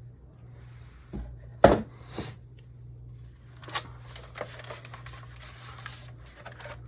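Plastic monitor case being handled, giving scattered knocks and light clicks, the loudest a single sharp knock about a second and a half in, over a steady low hum.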